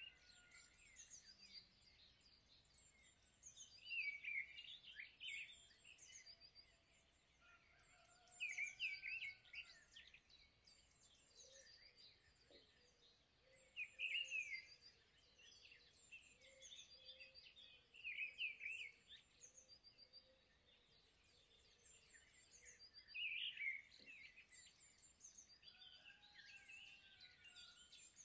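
Faint birds chirping and tweeting in short clusters about every four to five seconds, with quiet hiss between.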